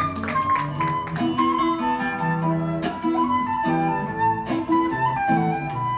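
Live band playing an instrumental passage: a flute carries the melody over guitar, bass and a few drum hits.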